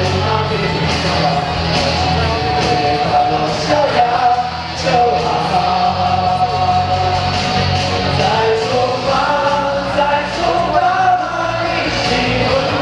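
A group of voices singing together in chorus over loud musical accompaniment, holding long notes, in a large hall.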